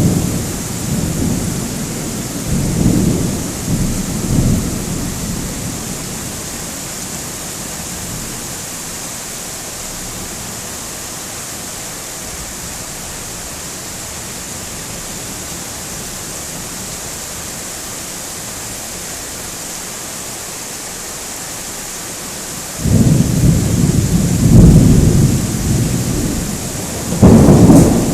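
Thunder rumbling and dying away over the first few seconds, leaving a steady hiss of rain. Then a sudden loud peal of thunder breaks out about three-quarters of the way through and rolls on, swelling again near the end.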